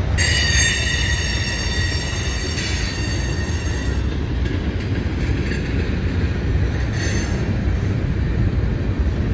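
Freight train's covered hopper cars rolling past, a steady low rumble of wheels on rail. A high, ringing wheel squeal starts almost at once, holds strongly for about four seconds, then fades and comes back briefly a few times.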